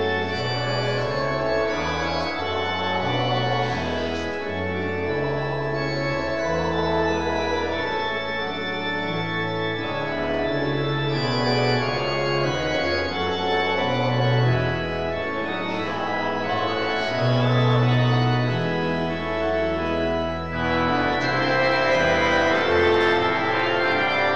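Organ playing sustained chords over a slowly moving bass line, the bass changing note about every second.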